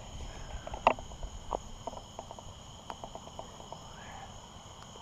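Steady chorus of night insects holding several high pitches, with scattered short clicks and knocks over it, the loudest about a second in.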